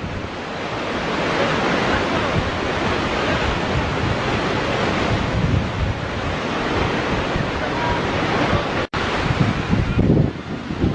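Steady rush of the Iguazu Falls' water plunging at the Devil's Throat, with wind buffeting the microphone. The sound drops out for an instant about nine seconds in, and gusts of wind on the microphone grow near the end.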